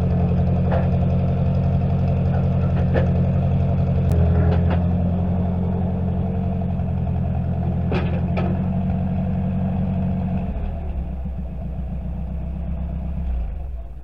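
Engine running steadily, dropping to a lower note about ten seconds in and shutting off shortly before the end, with a few sharp clicks over it.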